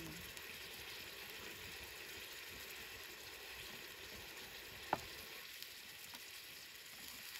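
Steady faint hiss, like distant sizzling, with one short high squeak about five seconds in.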